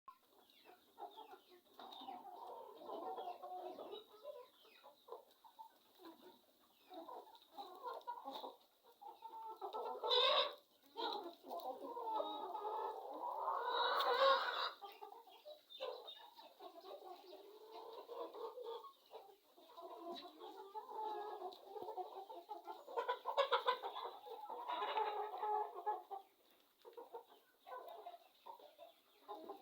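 A flock of chickens clucking continuously, many birds overlapping, with a few louder calls standing out now and then.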